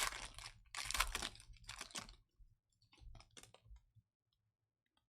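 Trading-card hobby box packs being torn open and the cards handled: three rustling bursts of wrapper and card noise in the first two seconds, then a few light clicks and taps.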